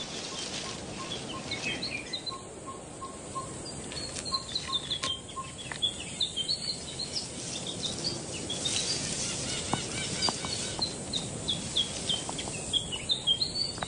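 Forest birdsong: runs of short, high chirps from several birds over a steady background hiss. During the first five or six seconds a lower single note repeats evenly, about two or three times a second.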